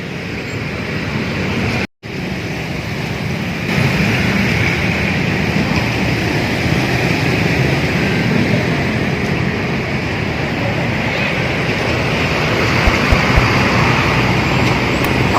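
Steady rumble of road traffic with bus engines running close by. The sound drops out briefly about two seconds in, then comes back louder from about four seconds.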